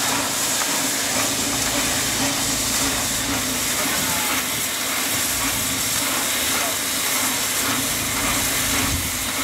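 Steam locomotive standing in steam, hissing steadily, with a steady low hum underneath.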